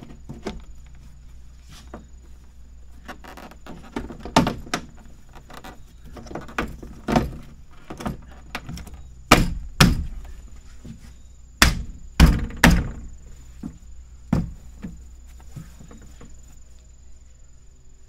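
Plastic interior door trim panel of a Jeep Wrangler TJ being knocked and pressed onto the door: an irregular run of sharp thumps, the loudest about halfway through.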